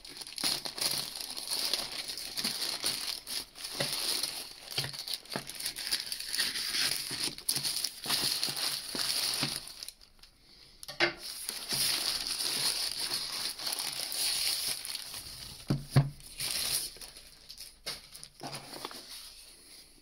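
Black plastic mailing bag crinkling and rustling as it is handled and opened by hand and a cardboard box is worked out of it, with a short pause about halfway through.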